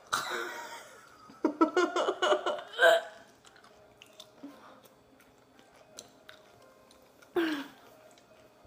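A person biting and chewing a pickle, with faint small crunching clicks. A quick run of muffled vocal sounds comes about two seconds in, and one brief vocal sound comes near the end.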